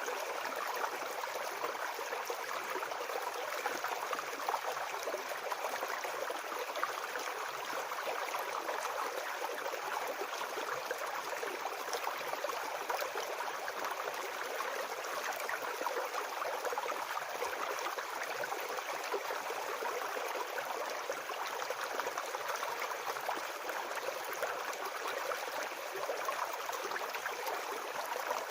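Shallow forest brook babbling and splashing over stones, a steady flowing rush.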